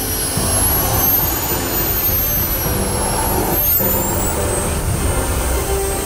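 Twin KingTech model jet turbines on a radio-controlled A-37 Dragonfly running as it taxis: a high whine that dips, rises and dips again with the throttle, over steady jet noise.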